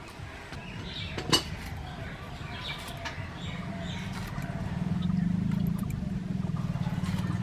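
Bitter gourd being cut on a boti, a fixed upright kitchen blade, with one sharp crack about a second in and small cutting clicks. From about halfway a low rumble rises and becomes the loudest sound.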